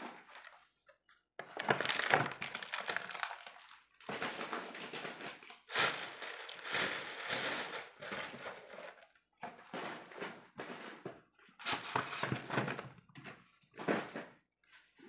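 Plastic-wrapped packages and wrappers rustling and crinkling in irregular bursts as items are handled and packed into a suitcase.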